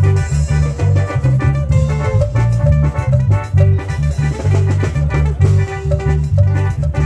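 Loud Latin dance music with a heavy, pulsing bass line, a steady beat and a melody on top.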